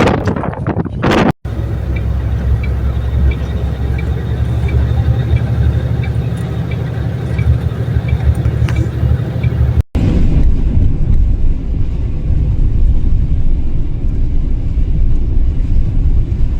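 Motor vehicle rumble, loud and low, in footage that cuts abruptly twice. In the middle stretch a faint ticking repeats about one and a half times a second.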